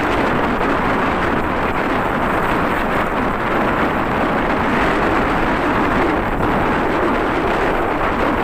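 Steady wind rush over the microphone of a moving motorcycle, a 2016 Honda CB150R StreetFire being ridden at a steady pace, with its engine running under the wind noise.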